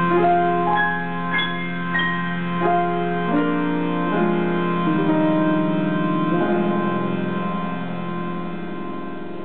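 Piano playing a slow closing passage of held notes and chords. The last chord, struck about six seconds in, is left to ring and slowly fade.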